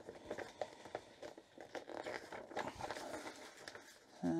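Thin folded paper crinkling and rustling as an instruction leaflet is unfolded by hand, a quiet run of small crackles. A short hummed voice sound comes right at the end.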